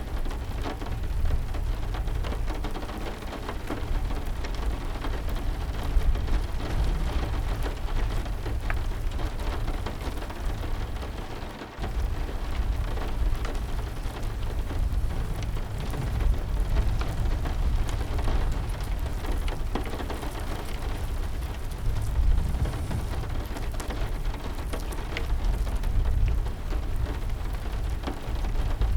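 Steady heavy rain, a dense patter of drops over a continuous deep low rumble, dipping briefly about twelve seconds in.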